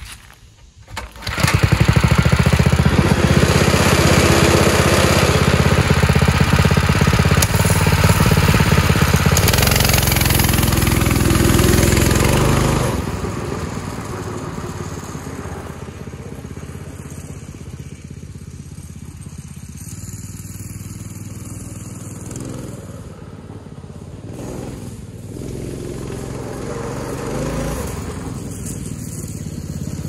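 Harbor Freight Predator 212cc single-cylinder four-stroke engine on a go-kart starts about a second in and runs loud up close. It then fades as the kart drives off down the driveway, and grows louder again near the end as the kart comes back.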